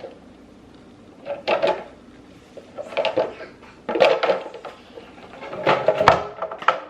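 Clear plastic storage organizers knocking and clacking against each other as they are stacked, in four short bursts of clatter.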